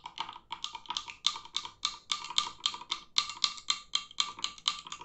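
Metal spoon stirring a glass of water and almond syrup, clinking rapidly and evenly against the glass, about four or five clinks a second, each with a short glassy ring.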